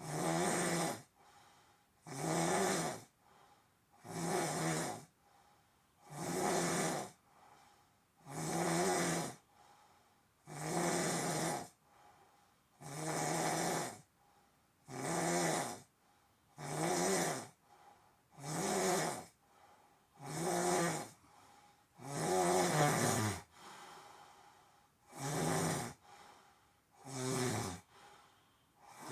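A sleeping person snoring loudly and regularly, one rasping snore about every two seconds.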